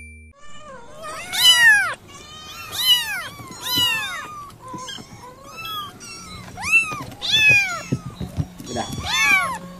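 Kitten meowing over and over: about eight high-pitched meows, each rising then falling in pitch, starting about a second in.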